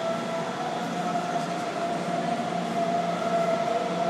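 Munich S-Bahn electric train (DB Class 423) moving alongside an underground platform, its electric motors giving a steady whine over a rolling rumble that echoes in the station hall.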